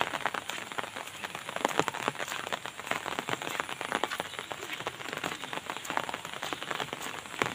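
Rain falling: a dense, irregular patter of drops.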